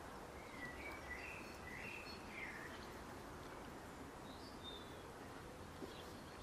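A bird singing: a warbling phrase of rising and falling notes in the first two to three seconds, then a short higher call a little past halfway, over a steady background hiss.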